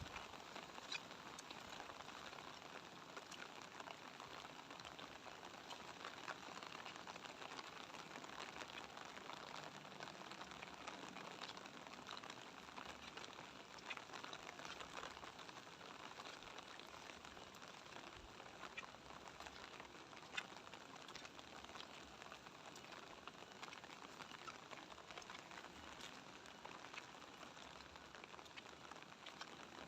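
Light rain falling steadily: a soft, even hiss with many small drops ticking and pattering.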